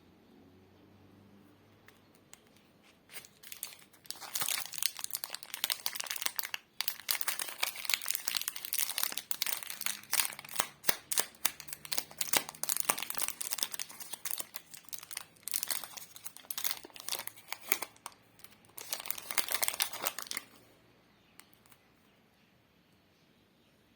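Plastic lollipop wrappers crinkling and tearing as they are handled and opened. It is a dense run of crackles that starts about four seconds in and stops about three and a half seconds before the end.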